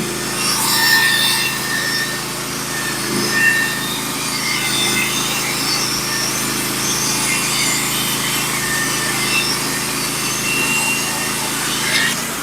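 Norwood manual band sawmill cutting through a log, its engine running steadily under load with the blade hissing through the wood, likely the opening waste cut.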